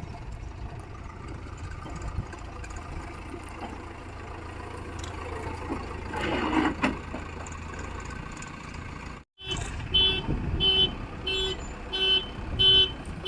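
Diesel engine of a backhoe loader and tractors running steadily, swelling briefly partway through. After an abrupt cut, a horn-like warning beep sounds repeatedly, about every 0.6 seconds, over the engine.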